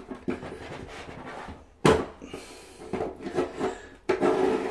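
Vinyl sheet flooring being slit with a hook-blade utility knife: scraping, rasping cuts with one sharp knock about two seconds in.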